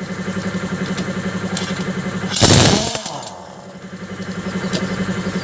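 A small engine running steadily with a fast, even pulse, and a loud rush of noise lasting about half a second, about two and a half seconds in.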